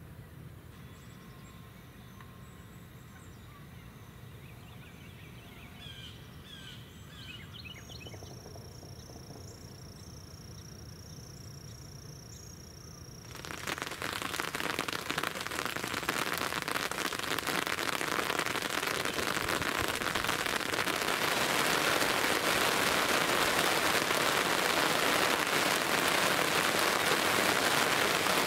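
Quiet outdoor background with a few faint bird chirps. About halfway through, rain abruptly sets in, pattering heavily on the hunting blind.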